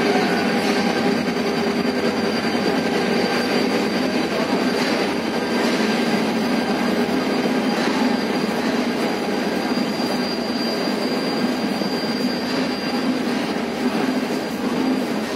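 Passenger train coach rolling slowly out of a station, heard from inside through an open window: a steady running noise from the wheels on the rails, with a thin high tone held through it.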